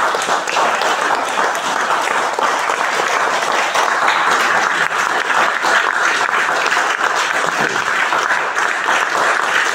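Steady, sustained applause: many hands clapping without a break.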